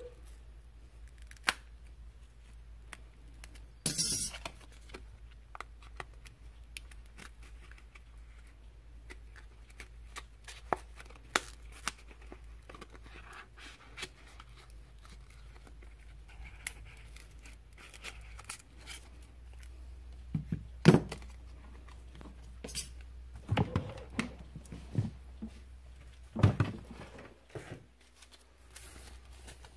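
Adhesive under a Samsung Galaxy S6's glass back cover tearing as a plastic card is worked through it, with one longer tearing burst about four seconds in. Scattered small clicks and taps run throughout, with a few louder knocks in the second half.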